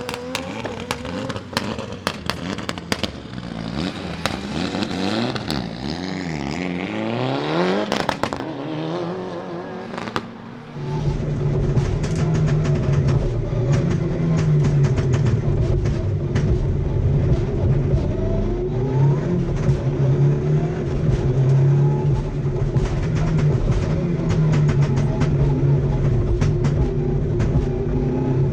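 Mitsubishi Lancer Evo VI rally car's turbocharged four-cylinder engine, heard from inside the car, revving through rising sweeps with a rapid crackle of pops and bangs from its anti-lag misfiring system. About eleven seconds in the engine note turns louder and steadier, still crackling.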